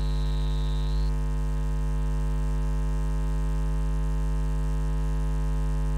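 Steady electrical mains hum on the recording, with a thin high steady tone that stops about a second in.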